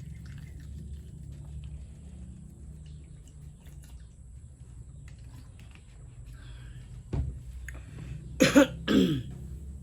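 A person coughs twice in quick succession near the end, loud and short, after a quieter stretch of faint small clicks over a steady low hum.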